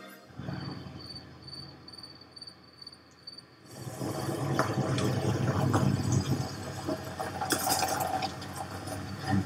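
Ambient sound effects from a music video's soundtrack, with no music: a noisy, water-like wash with a faint insect chirping, growing louder about four seconds in.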